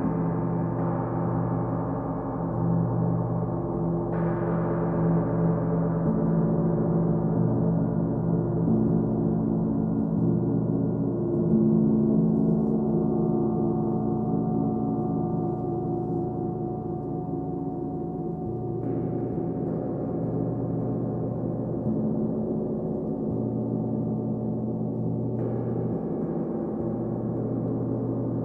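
Large gongs, one a Paiste, played with soft mallets: a continuous shimmering wash of many overlapping tones that swells and ebbs. Fresh strokes come about four seconds in and twice more in the last third.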